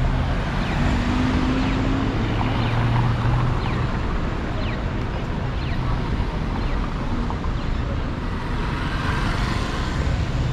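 City street traffic: a motor vehicle's engine running close by with a steady low hum, over continuous road noise. The hum is strongest in the first few seconds. Short high chirps repeat throughout.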